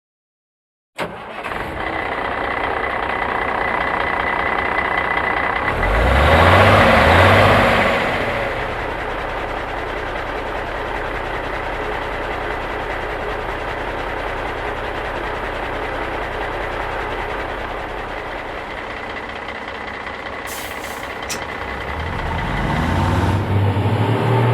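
Diesel semi-truck engine running, coming in suddenly about a second in, revving up with a rising pitch about six seconds in, settling back, and revving again near the end.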